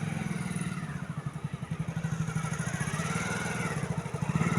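Motorcycle engine idling with a fast, even pulse, and a faint wavering whine above it.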